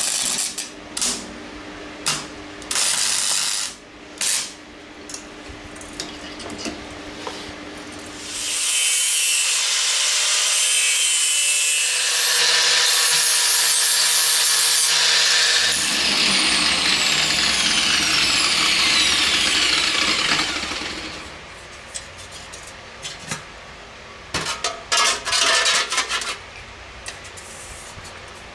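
MIG welder arc crackling in short bursts on 1 mm steel plate. About eight seconds in, an angle grinder starts grinding the steel helmet part with a steady high rasp, then winds down with a falling whine a little before twenty seconds. A few more short harsh bursts come near the end.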